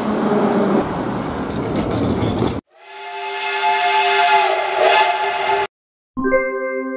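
A metro train running into a station with a dense rushing noise, then a cut to a steam locomotive's whistle sounding steadily for about three seconds over hissing steam. After a brief gap, an electronic chime begins near the end.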